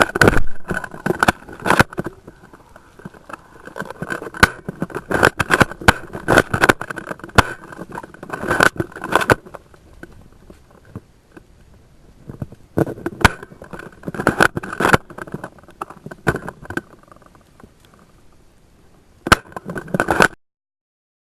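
Airsoft guns firing in clusters of sharp clicks, mixed with rustling and clatter from players moving. The clusters come in several bursts, and the sound cuts off abruptly near the end.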